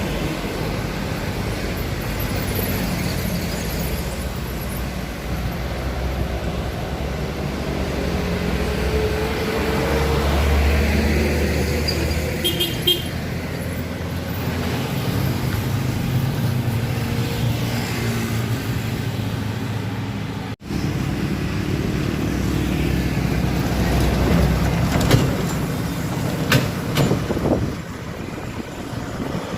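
Heavy truck engine labouring up a steep hill among passing traffic, its note rising for a few seconds near the start, with a brief high tone around the middle and a few sharp knocks near the end.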